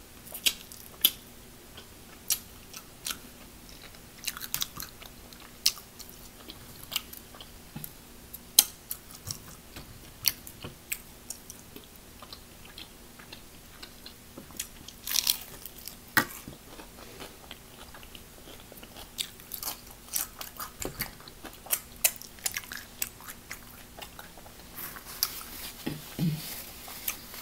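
Close-up chewing and biting of crispy battered fried chicken wings, the flaky, crunchy crust crackling in irregular sharp crunches.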